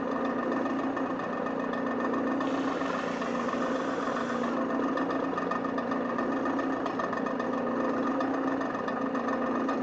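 Drill press motor running with a steady hum, spinning a Scotch-Brite abrasive disc against an aluminum plate to give it a brushed finish. A hiss of the pad scrubbing the metal rises over the hum for about two seconds near the middle.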